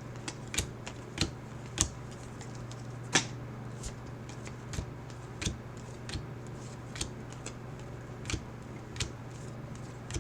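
Cardboard trading cards being handled and flipped through one at a time, giving irregular light clicks and snaps about once every half second to second, the sharpest about three seconds in, over a steady low electrical hum.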